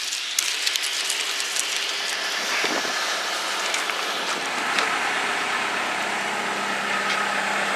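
A motor running steadily, heard as a low hum under a broad hiss, with a few light clicks and knocks scattered through.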